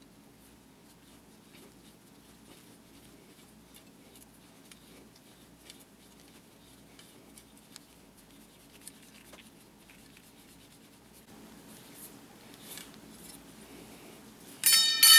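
Faint small clicks and rubbing over a low steady hum, then near the end a sudden loud, high-pitched tone with several overtones.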